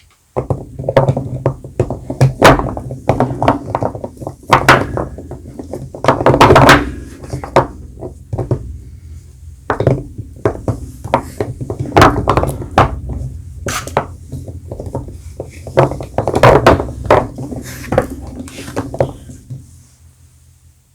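Bars of soap and their packaging handled up close: irregular thunks and knocks as bars are tapped and set down, with crinkling of wrappers, stopping shortly before the end.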